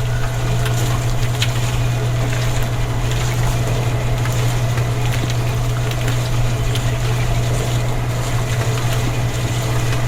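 Small motor running steadily: a loud, unchanging low hum with faint clicks and rattle over it.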